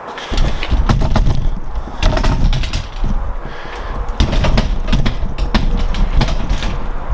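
Camera microphone handling noise: a heavy, uneven rumble broken by many sharp knocks and clicks as the camera is picked up and moved, starting about a third of a second in.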